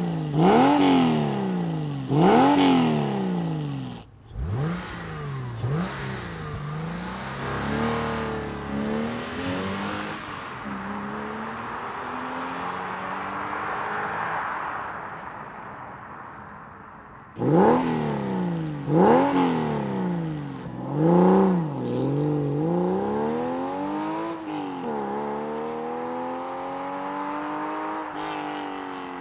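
Porsche 911 (996) 3.4-litre naturally aspirated flat-six exhaust, the Gundo bypass pipe letting gas skip the standard mufflers: three sharp throttle blips at a standstill. From about four seconds the car launches from a standstill on stock mufflers, revving and then pulling away hard with rising pitch and gear changes before fading. From about seventeen seconds the launch is repeated with the bypassed mufflers: hard revs at the line, then long rising pulls through the gears.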